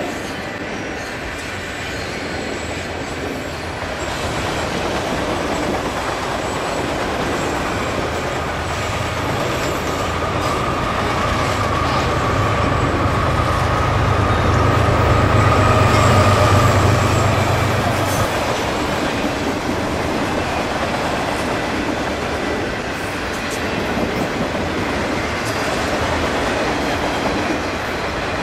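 Long freight train rolling past, steel wheels running and clacking on the rails. Partway through, the mid-train distributed-power locomotive, a GE AC44CWM, goes by: a low engine hum and a high steady whine swell, peak and fade back into the sound of the passing cars.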